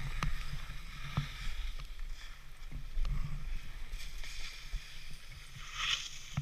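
Skis scraping and carving over firm, icy snow: a hiss that rises and falls with the turns, loudest about six seconds in. Wind rumbles on the microphone underneath, with a few sharp knocks.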